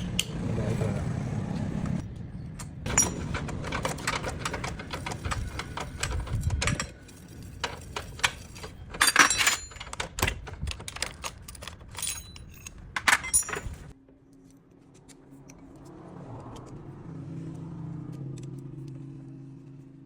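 Metal tools and parts clinking and knocking in a run of irregular sharp clicks, with a louder clatter around nine and thirteen seconds in. After about fourteen seconds the clinking stops and a steady low hum takes over, swelling slightly before fading.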